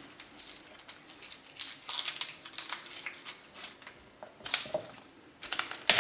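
Garlic cloves being peeled by hand on a wooden cutting board: the papery skins crinkle and crackle, with light clicks and taps as cloves are handled and set down. These come in short irregular bursts, the loudest near the end.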